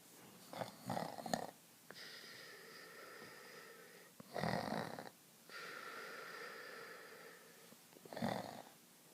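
A person snoring deeply: three loud, rattling snores about three and a half seconds apart, with a faint whistling tone on the breaths between them.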